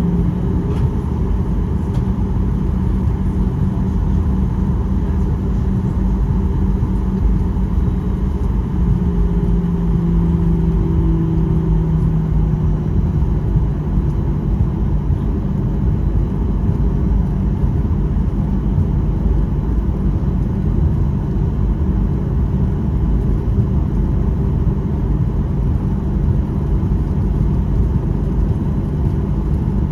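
Cabin noise inside a Boeing 737-800 with its CFM56 engines running: a steady low rumble, with a hum that is strong for about the first twelve seconds and then fades back into the rumble.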